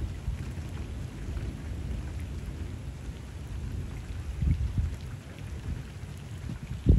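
Rain falling steadily onto canal water, over a low, rolling rumble of thunder that swells about four and a half seconds in.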